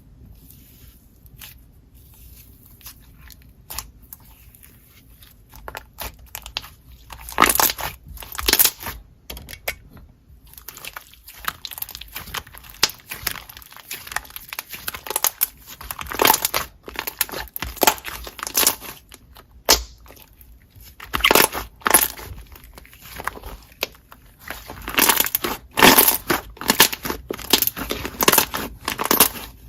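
Slime being squeezed, pressed and stretched by hand, giving irregular crackling clicks and pops, with clusters of louder pops about a quarter in, around the middle and again near the end.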